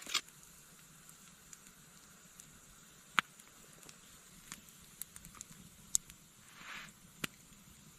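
Campfire crackling faintly: a few isolated sharp pops spread a second or more apart over a low steady hiss, with a brief soft hiss near the end.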